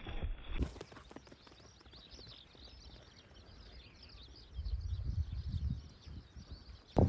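Wind gusting on the microphone outdoors, a low rumble from about four and a half to six seconds in, over a faint background of short high chirps.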